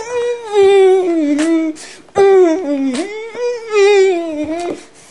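A person singing without words in long, wavering held notes, two phrases with a short break about two seconds in.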